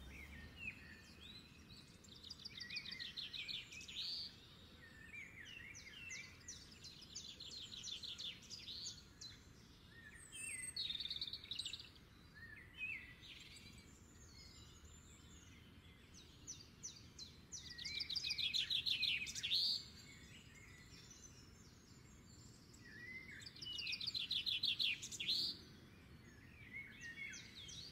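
Songbirds singing in a garden: scattered chirps and short calls, with a fast trilled song phrase of about two seconds repeated several times, loudest twice in the second half.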